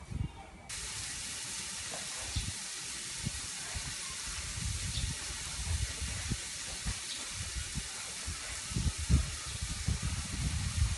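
A steady hiss that starts abruptly about a second in, under irregular soft knocks of a knife cutting chillies on a wooden chopping board.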